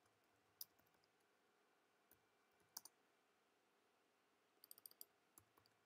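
Near silence broken by a few faint computer keyboard and mouse clicks: single clicks, then a quick run of several clicks near the end.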